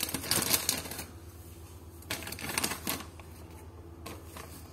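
Two short bursts of clicking and scraping handling noise, each about a second long, over a steady low hum.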